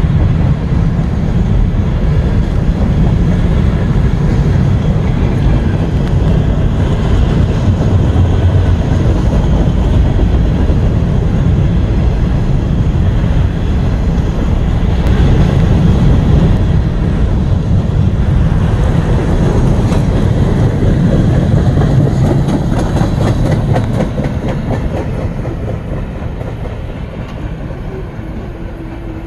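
Freight train of covered hopper cars rolling past: a steady deep rumble of steel wheels on rail with clicking over the rail joints. The sound fades away near the end.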